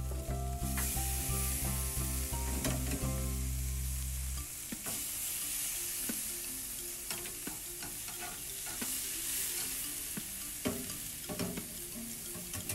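Pork chops sizzling on the grate of a hot charcoal grill, a steady hiss, with scattered clicks of metal tongs against the grate. Low sustained music notes sound under it for the first four seconds or so, then stop.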